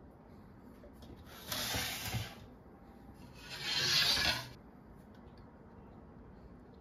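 Two scraping slides of cookware across a stone countertop, each lasting about a second. The second, louder one is a black ridged grill plate being pushed into place.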